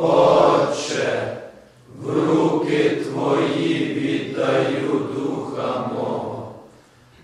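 A group of men reciting a prayer verse aloud together in a slow, chant-like cadence: a short phrase, then a longer one.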